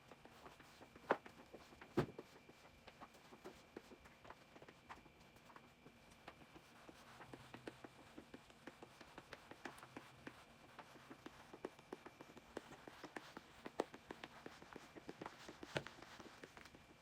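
A floor being mopped with a wet mop: faint scrubbing with many small irregular taps, and two louder knocks about one and two seconds in.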